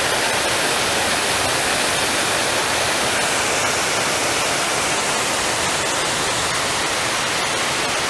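The 16-metre Šum waterfall, a steady, loud rumble of falling water from close above it.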